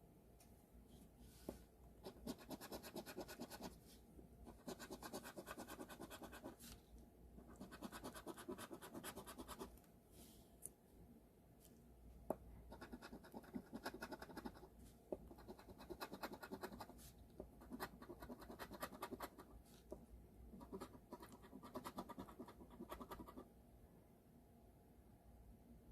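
Scratch-off lottery ticket being scratched, its latex coating scraped off in repeated short spells of quick scratching with brief pauses between.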